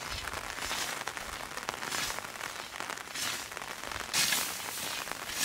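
Hand scythe swishing through long wet grass, one stroke about every second, the strongest about four seconds in, over a steady patter of rain.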